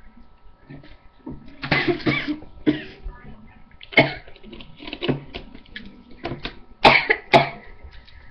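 A person coughing several times: a longer rough bout about two seconds in, a single sharp cough a couple of seconds later, and two sharp coughs close together near the end.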